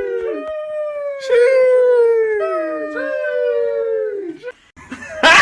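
A dog howling in several long notes, each sliding slowly down in pitch, stopping about four seconds in, followed by a brief noisy burst at the very end.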